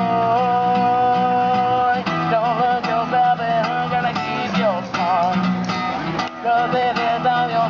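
A man singing long held notes with a wavering vibrato over a strummed acoustic guitar.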